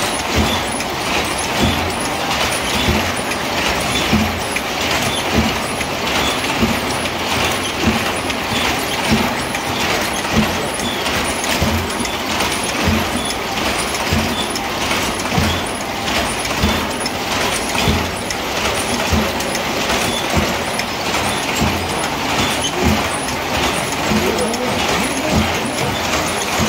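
Mechanical sedge-mat looms running: a steady loud clatter with a heavier knock a little more than once a second and quick light ticking over it.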